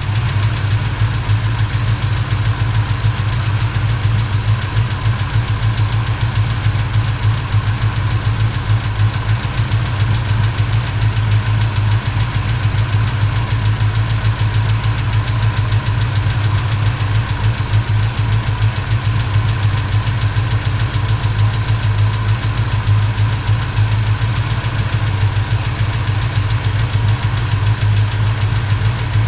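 1977 Chevrolet C10's small-block Chevy 350 V8 idling steadily, with a light tapping from the valvetrain that the owner takes for a lifter or rocker arm on one side after a broken rocker arm and a valve lash adjustment.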